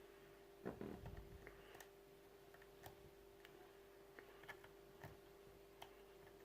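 Faint, irregular small clicks and scrapes of a lock pick and tension wrench working the pins inside a Schlage pin-tumbler lock, with a brief louder rustle of handling about a second in, over a faint steady hum.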